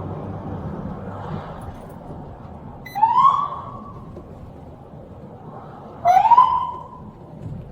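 Two short siren blips from a police car, each a quick rising whoop lasting about half a second, about three seconds apart, over a steady low vehicle rumble.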